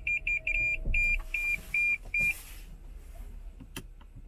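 Drive-through car wash machine's electronic beeper sounding short high beeps about two a second, stopping about two and a half seconds in. A short hiss and a few sharp clicks follow.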